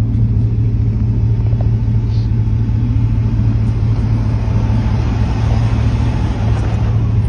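A vehicle engine running steadily at a constant low pitch, with a light rumble.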